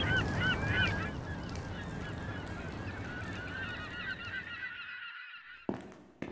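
A flock of gulls calling, many short arched yelps over a low rumble, fading away about five seconds in. Near the end come two sharp knocks, footsteps on a hard floor.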